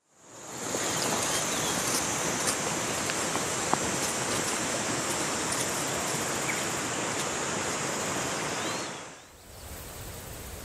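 Steady rushing of a mountain stream with a continuous high insect drone above it and a few faint bird chirps, fading in at the start. Near the end it drops to a quieter, softer rush without the insect drone.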